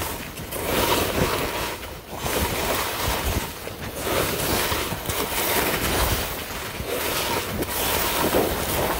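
Wind buffeting a phone's microphone, with edges scraping and hissing over packed snow during a descent. The noise rises and falls every second or so as the turns go.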